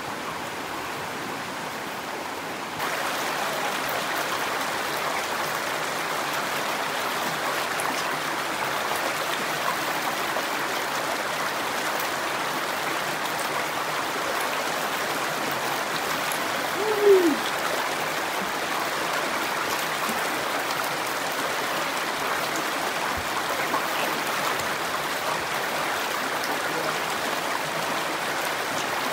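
Mountain stream water rushing over a rock slab in a steady rush that gets louder about three seconds in. About halfway through there is one short falling squeak.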